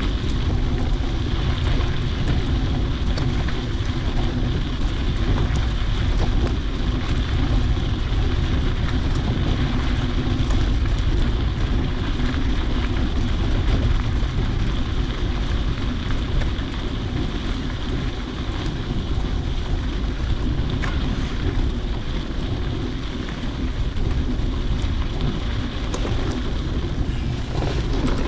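Steady wind rushing and buffeting over the microphone.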